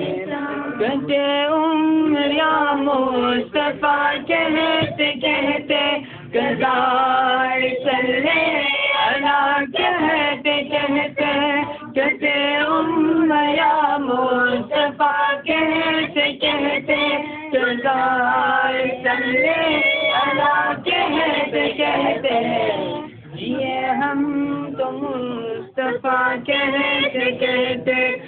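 Voices singing a devotional song in praise of the Prophet, a steady melodic chant with long held notes.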